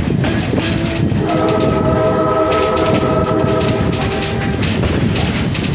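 Tourist train rumbling and clattering along the track, heard from aboard a moving car. The train's horn sounds one long note, starting about a second in and lasting about three seconds.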